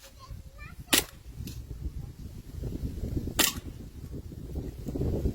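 Airsoft Glock pistol firing two shots, about two and a half seconds apart, each a short sharp crack, over a low background rumble.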